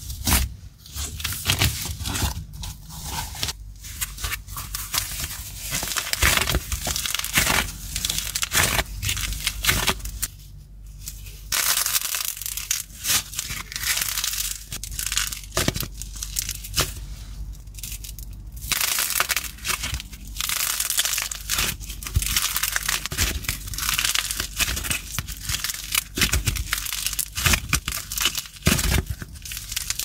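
Soft, glitter-coated clay being squeezed, kneaded and pulled apart in the hands, making close, crackly crunching and tearing sounds in quick irregular bursts, with a brief lull about ten seconds in.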